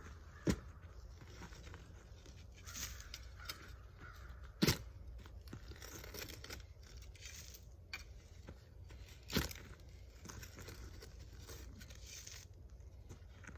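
A small high-carbon-steel 4PATRIOTS Ready Shovel on a stick handle digging into leaf-covered soil: three sharp strikes as the blade is driven in, about every four to five seconds, with crunching and tearing of earth between them.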